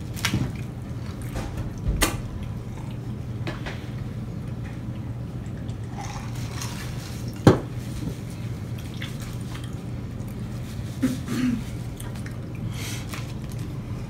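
Eating sounds at a table: paper burger wrappers rustling and handled, mouth and chewing noises, with scattered clicks and knocks, the sharpest about halfway through, over a steady low hum.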